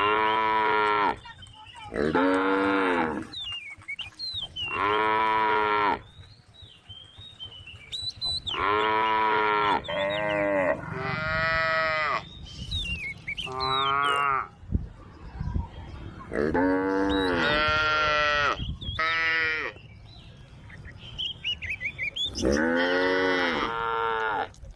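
Several cows mooing in turn: about a dozen long calls, each a second or so, some following right on one another.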